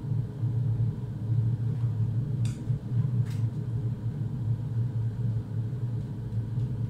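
A steady low rumble runs under a wooden spoon stirring a creamy sauce in a pan on a gas hob, with a couple of faint scrapes a little past two and three seconds in.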